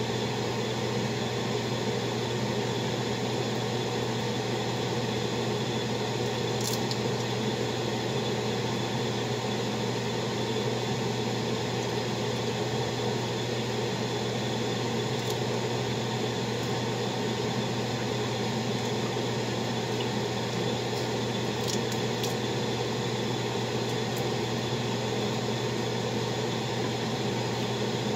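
Steady machine hum with a low drone, like a kitchen appliance or fan running, with a few faint clicks about a quarter of the way in and again later.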